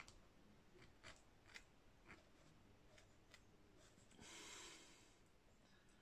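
Faint scraping and light ticks of a small blade picking moulding sand out of a casting flask, a few separate scrapes, with a soft rushing noise about four seconds in.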